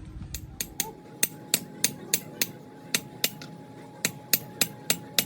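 Hammer striking metal in a steady run of blows, about three a second, over a ringing metallic tone.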